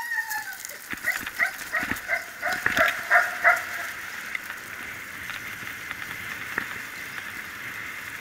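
A team of harnessed dogs yipping excitedly, a quick run of short high barks over the first few seconds as they set off pulling. The barking stops and a steady rushing noise of the run along the dirt track takes over.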